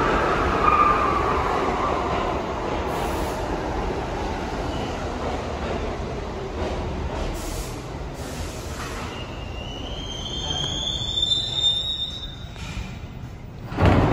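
New York City subway train moving through the station, its rumbling running noise slowly fading as it slows. About ten seconds in, a high squeal rises in pitch for a couple of seconds, and a sudden loud noise comes right at the end.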